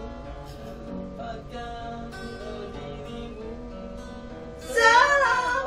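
Acoustic guitar strummed in an instrumental passage of a ballad. Near the end a voice breaks in much louder, covering the guitar.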